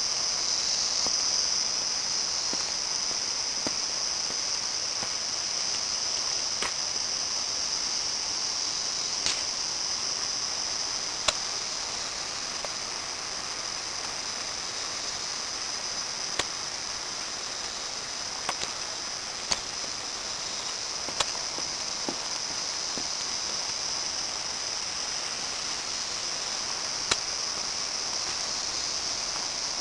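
Steady, high-pitched drone of insects, with scattered sharp clicks over it.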